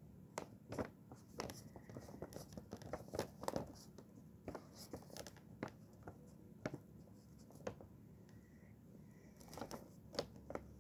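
Faint, irregular scratching and rustling of paper and a felt-tip pen being handled, with short clicks scattered throughout.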